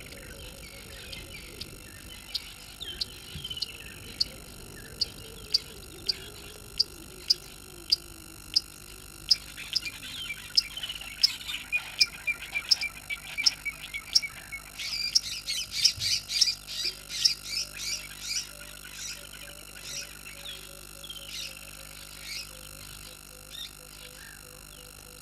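Frogs calling at a waterhole: a sharp, high click repeated a little under twice a second that thickens into a fast run of clicks about fifteen seconds in, with birds whistling short falling notes over a faint steady chirring.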